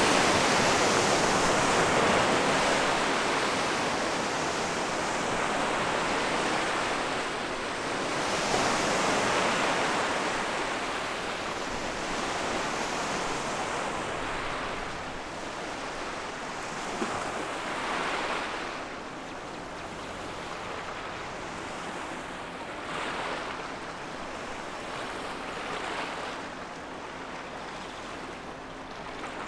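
Wash of water and waves from a passing expedition cruise ship's wake, surging several times and growing fainter as the ship moves away.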